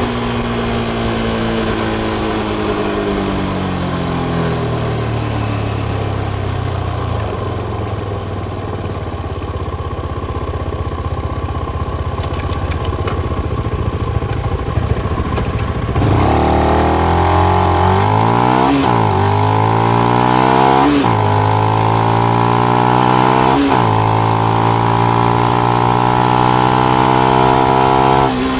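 Benelli BN125's single-cylinder four-stroke engine through the stock exhaust with the dB killer in. The revs fall away for several seconds and run low and steady. About halfway through the engine gets louder and the revs climb, with three sharp drops in pitch a couple of seconds apart as it shifts up, then rise steadily again until a sudden drop at the end.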